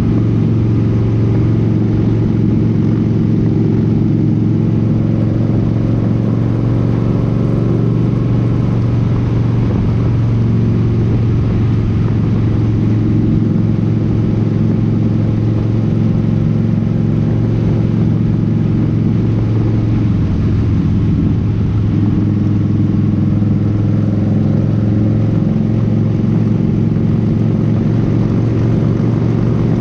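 Cruiser motorcycle engine running steadily at highway speed, heard from on the bike, under a steady rush of wind noise. The engine note wavers briefly about two-thirds of the way through, then settles again.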